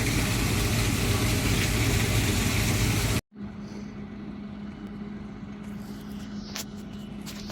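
Engine running loud with a steady low hum and heavy noise, cutting off abruptly after about three seconds to a quieter, steady engine hum with a few sharp clicks.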